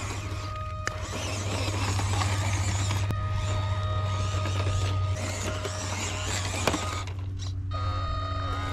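1/18 scale EazyRc Glacier RC crawler truck's small electric motor and gearbox whining steadily as it crawls over loose gravel, with a few sharp clicks from stones under the tyres.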